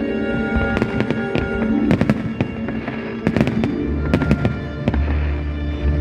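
Fireworks salute going off in a run of sharp, irregular bangs, several close together, over music with held notes. A deep bass enters in the music about four seconds in.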